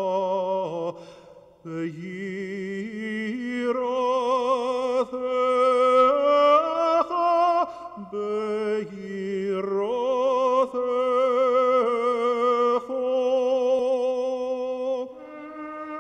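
A solo voice chants a slow, ornamented melody with strong vibrato, holding long notes and sliding between them. About a second before the end a steady held wind-instrument note takes over.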